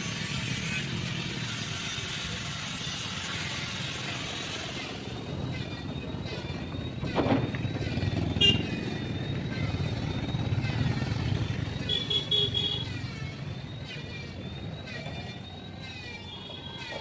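Steady rumble of passing road traffic, with a sharp knock about seven seconds in.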